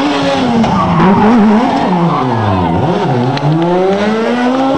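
Rally car engine through a hairpin: the revs wobble, drop to a low point about halfway through, then climb steadily as the car accelerates away.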